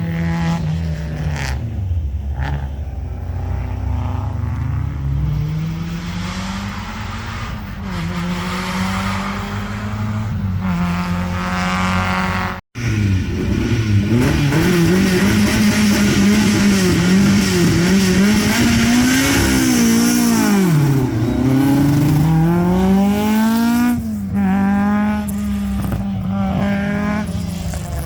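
Historic rally car engines revving at a special-stage start: loud, held high revs that dip and rise again, with quick blips. A cut partway through, and near the end the engine climbs in pitch several times as a car pulls away.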